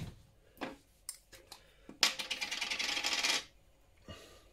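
Kitchen containers and utensils handled while marinade ingredients go into a bowl: a few light clicks and knocks, then a rapid rattling rasp for about a second and a half, about two seconds in.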